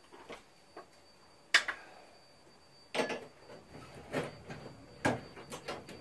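A few sharp knocks and clatters of brewing equipment being handled, spaced irregularly, the loudest about one and a half seconds in.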